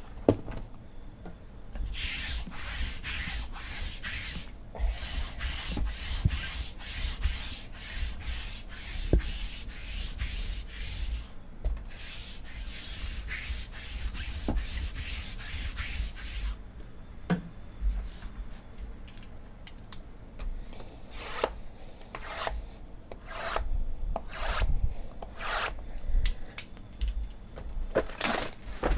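Lint roller rubbed quickly back and forth over the tabletop, about two or three hissing strokes a second, stopping a little past halfway. After that, scattered knocks and scrapes of cardboard card boxes being handled.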